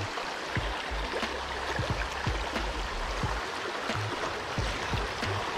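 Shallow, rocky creek running over stones in a steady rush of water, with irregular low thumps on the microphone.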